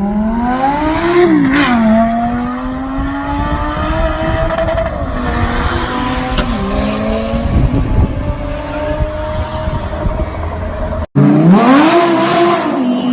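Audi R8's 5.2-litre V10 with an aftermarket Quicksilver exhaust accelerating hard: the pitch climbs, drops at a gear change about a second and a half in, then climbs again more slowly. Near the end an abrupt cut leads to another loud rev that rises and falls.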